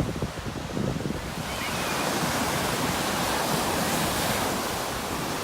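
Ocean surf washing in. The wash swells about a second and a half in and then holds steady, with wind rumbling on the phone's microphone.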